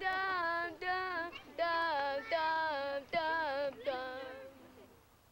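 High voices singing a short tune of about six held, slightly wavering notes, fading out near the end.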